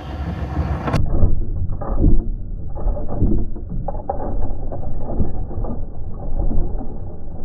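LEGO train running on plastic track right beside the camera: a continuous low rumble with irregular clicks and knocks from the wheels and track. After an abrupt change about a second in, it sounds dull and low-pitched.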